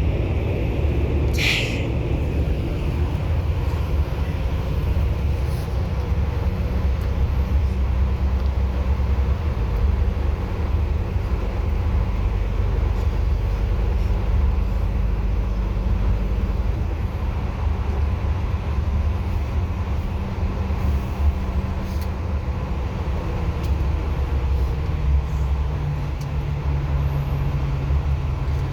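Bus running at speed: a steady low engine drone and road noise, with a brief high-pitched hiss or squeal about a second and a half in. A steadier low engine note comes in near the end.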